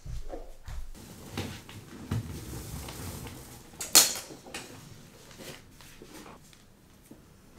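Unpacking a suitcase by hand: clothes and packed items rustling and shifting, with light knocks and one sharp click about four seconds in.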